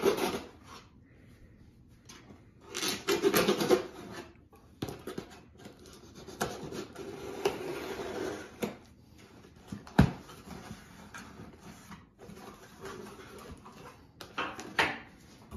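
A knife slitting the packing tape on a cardboard box, with irregular scraping and rustling of cardboard as the flaps are pulled open; a single sharp knock about ten seconds in.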